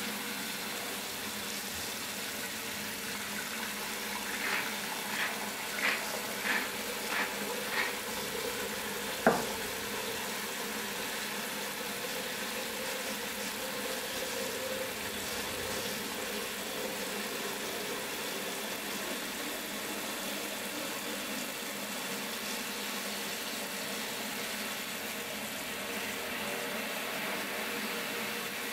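Kitchen mixer tap running steadily into a stainless steel stock pot in a stainless sink, filling it with water around a large beetroot. A quick run of about six short knocks comes about five seconds in, then one sharper knock about nine seconds in.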